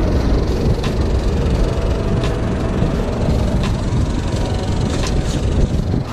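Heavy diesel engine running steadily at idle, a dense low rumble, with a few sharp knocks or clicks scattered through it.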